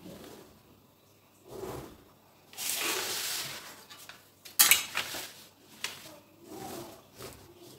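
Brown paper pattern sheet rustling and sliding on a stone tabletop, with a sharp plastic clack about four and a half seconds in as a plastic drafting tool is set down, and lighter knocks of ruler and pen handling.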